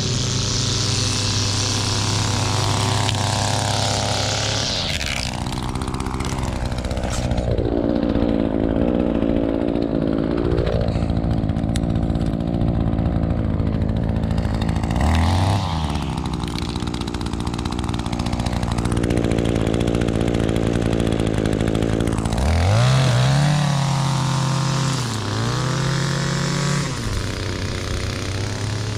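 Gas engine of lawn-care equipment running loudly and steadily, its pitch rising and dipping several times as the revs change.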